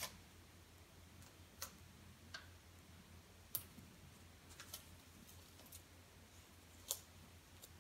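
Faint, scattered clicks and ticks of hands peeling small self-adhesive foam stickers off their paper backing sheet and pressing them onto a foam butterfly, about eight irregular clicks over a low steady hum.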